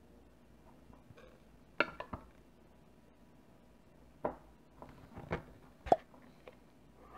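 Handling clicks and knocks of a glass jar with a twist-off metal lid being gripped and wrenched open, and a metal spoon set clinking into a glass tumbler. A few sharp taps come about two seconds in, then a run of clicks from about four seconds on, the loudest near the end with a short ring.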